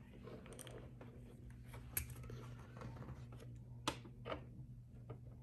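Faint handling of a plastic toy egg and marbles, with a few sharp clicks about two seconds in and again around four seconds, as a marble is set down on a LEGO baseplate.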